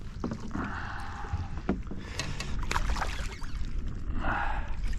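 Shimano Vanford 1000 spinning reel whirring in two spells, about a second long early and a shorter one near the end, while a pinkie snapper is played on ultra-light line. Scattered clicks fall between the two spells, and wind rumbles on the microphone throughout.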